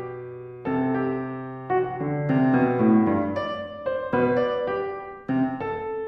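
Piano played solo: a beginner-level piece of struck notes and chords, each attack fading away before the next, roughly one or two a second.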